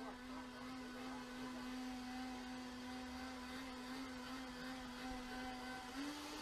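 A steady hum at one constant pitch, like a small motor or fan running, stepping up slightly in pitch about six seconds in.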